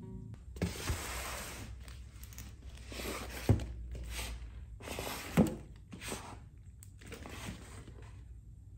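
Cardboard box handled and moved on a wooden tabletop: repeated scraping and rustling of cardboard, with two sharp knocks about three and a half seconds in and again two seconds later.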